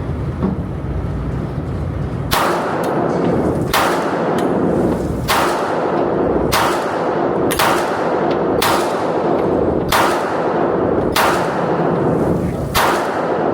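Firearm fired in a slow string of about nine shots, starting about two seconds in, roughly one shot every second or so, each shot followed by a short echoing ring.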